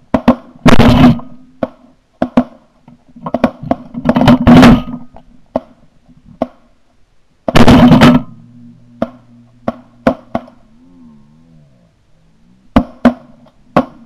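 Shotgun shots at flying pigeons: three very loud blasts about 1, 4.5 and 8 seconds in. Shorter, lighter sharp cracks fall between them and near the end.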